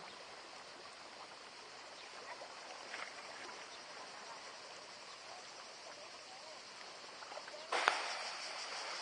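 Gentle sea water lapping, with faint distant voices. About three-quarters of the way in, it turns suddenly louder as small waves wash over a shallow pebble beach.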